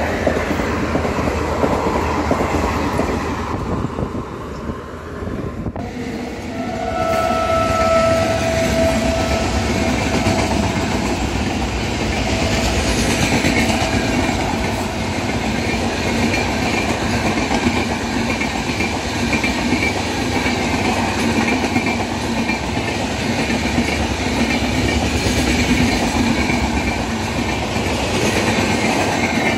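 Express passenger coaches rushing past at speed, with a continuous rumble and wheels clattering over rail joints. After a cut about six seconds in, an electric locomotive's horn sounds one long blast, and then a rake of LHB coaches runs past.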